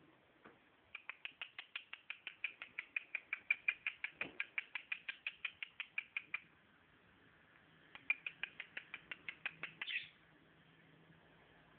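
Cockatiel giving rapid, evenly spaced short chirps, about six a second, in two runs separated by a short pause. The second run ends in a brief, higher chirp.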